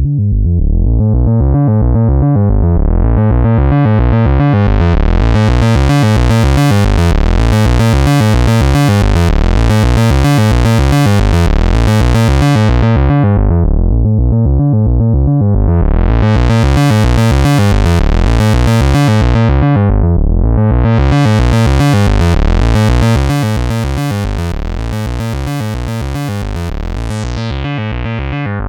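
Eurorack synthesizer patch: a Morphing Terrarium E350 wavetable oscillator playing fast repeating notes through a voltage-controlled filter. An LFO sweeps the filter's cutoff slowly open and shut, so the tone brightens and dulls several times, going nearly dark twice in the middle.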